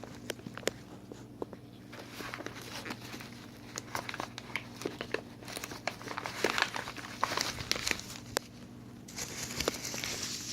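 Packaging being crumpled and pulled apart by hand as a plant is unwrapped: irregular crinkling and rustling with many small sharp clicks, growing denser and louder near the end.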